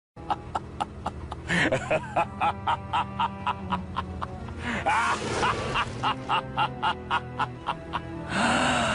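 A short music clip with a fast, steady beat of about three beats a second, with a few squeaky gliding notes over it. It cuts off suddenly at the end.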